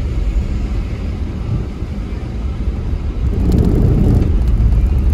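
Car driving on city streets: a steady low engine and road rumble that swells louder for about a second, around three and a half seconds in.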